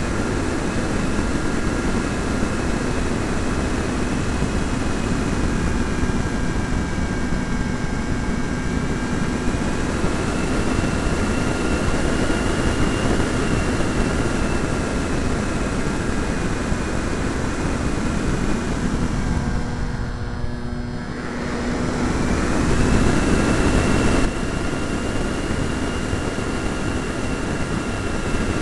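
Onboard sound of an E-flite Pitts electric RC model biplane in flight: the steady whine of its electric motor and propeller over wind rush on the camera, the whine wavering in pitch. About 20 seconds in the whine dips away briefly, then returns over a louder rush that drops back suddenly a few seconds later.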